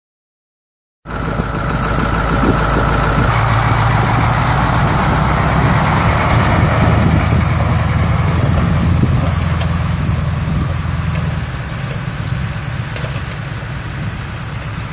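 International D190 eight-cylinder diesel engine of a 1987 International S1700 semi truck running at a steady speed, somewhat quieter after about eleven seconds.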